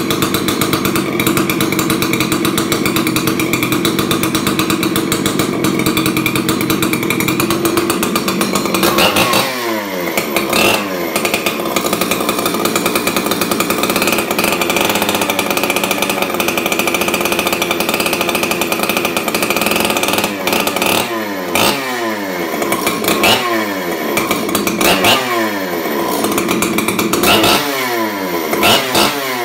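Husqvarna 266 XP two-stroke chainsaw running through a custom exhaust pipe that replaces its stock muffler. It holds a steady speed for the first several seconds, then is revved in repeated short throttle bursts, the pitch dropping sharply after each one.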